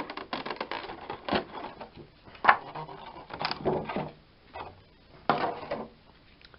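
Clear plastic clamshell packaging being opened and handled, crackling with irregular sharp clicks; the loudest click comes about two and a half seconds in.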